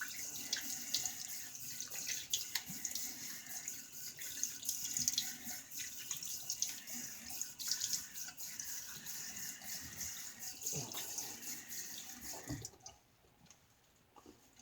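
Tap running into a sink with irregular splashing, a rinse after a wet shave. The water stops near the end.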